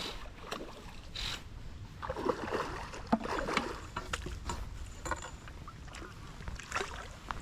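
Water splashing and sloshing in irregular bursts as a hooked brown trout is drawn in and netted, over a low steady rumble, with a few sharp clicks.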